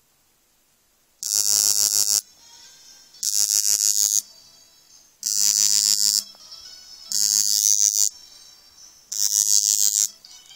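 Samsung Galaxy Nexus phone's vibration motor going off in five harsh, rattling buzzes of about a second each, roughly two seconds apart, as for an incoming call. The buzz is a horrible noise from a brand-new phone, which stops when the bottom of the phone is pressed hard.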